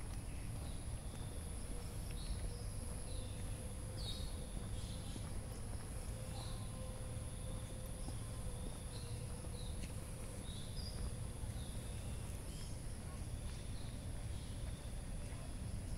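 Evening insect chorus, a steady high-pitched trill, with short bird chirps repeating every second or two, over a steady low rumble.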